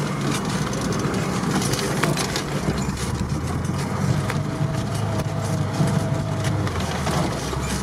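Off-road vehicle engine running steadily, heard from inside the cabin, while the vehicle drives over snowy bumps with repeated small knocks and rattles from the body.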